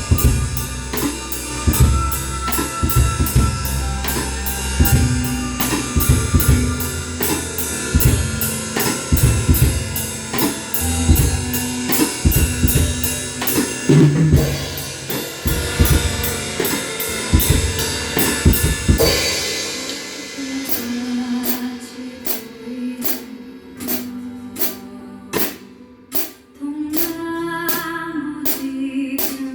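Drum kit played along to a backing track of a Korean trot ballad, with bass drum, snare and cymbals keeping a full beat. About two-thirds of the way through the low drums drop out, leaving steady, evenly spaced cymbal strikes over the melody.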